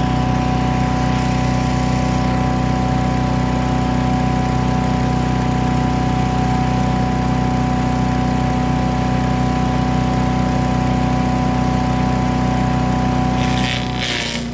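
Gas engine of a Predator chipper/shredder running steadily. Near the end its pitch dips briefly and a harsh, noisy rasp comes in.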